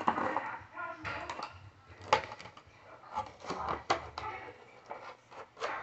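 Plastic toy packaging and a small action figure being handled: irregular clicks, taps and crinkles, with one sharper click about two seconds in.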